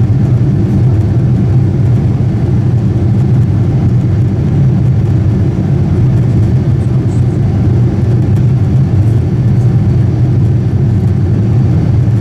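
Steady low rumble of a Boeing 747-8's GEnx engines and the airflow around it, heard inside the passenger cabin near the wing during descent.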